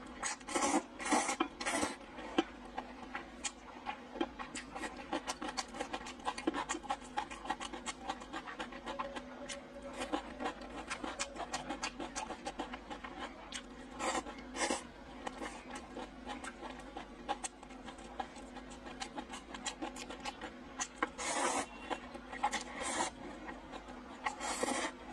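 Close-up eating sounds: glass noodles slurped in short hissing bursts, several near the start, a couple about halfway, and a few more near the end. Wet chewing clicks and smacks fill the stretches in between.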